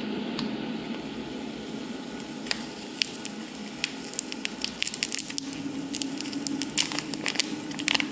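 Food sizzling and crackling in hot fat, with irregular sharp pops that come thicker in the second half. A steady low hum joins about five seconds in.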